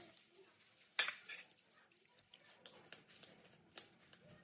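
Steel dishes and utensils clinking. A sharp clink comes about a second in, a lighter one just after, and another near the end, with small ticks between.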